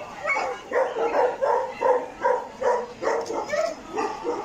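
A dog barking in a rapid, even series of short barks, about two and a half a second.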